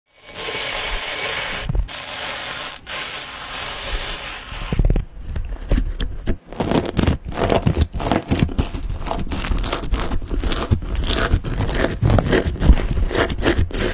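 Small plastic cube beads poured in a stream into a bowl of clear slime, a steady rattling hiss for about the first five seconds. Then hands press and knead the beaded slime, giving rapid crunchy crackling and popping.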